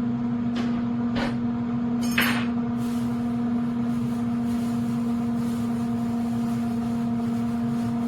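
Instant Pot Vortex Plus air fryer toaster oven running with a steady electric hum. Three short hisses come in the first two seconds or so.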